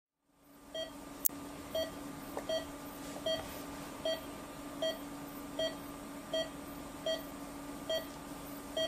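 Operating-theatre patient monitor's pulse-oximeter tone beeping in time with the heartbeat, a little more than one short beep a second, over a steady electrical hum. A single sharp click about a second in.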